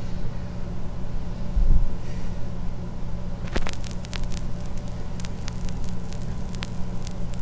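Turntable stylus lowered onto a vintage vinyl LP: a low thump of handling, then, from about halfway, the crackle and scattered pops of the run-in groove over a steady hum.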